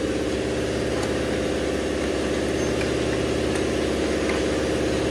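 A motor running at a steady idle: an even, unchanging drone with a fast regular pulse.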